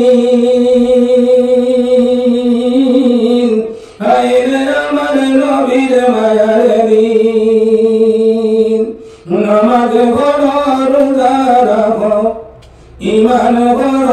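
A man singing a Bengali gazal unaccompanied into a microphone, in long held notes, the phrases broken by short pauses for breath.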